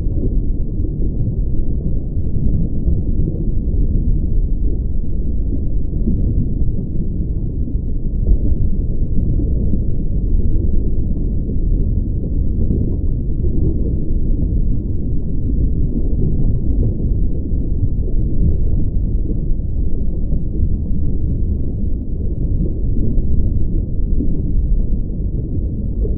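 Steady, loud low rumbling drone, a dense noise with nothing in the higher range and no rhythm or pitch to it.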